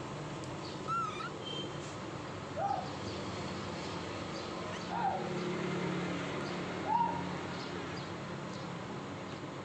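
Four short animal calls, each a quick rise and fall in pitch, spaced about two seconds apart, over steady low background noise.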